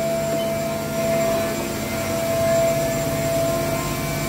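Machine-shop hum from powered-up equipment: a steady low hum with a constant high whine over it.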